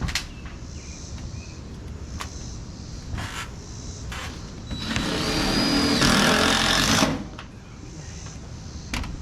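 Power drill running for about two seconds, its whine stepping up in pitch partway through before it stops abruptly. Scattered knocks come before it.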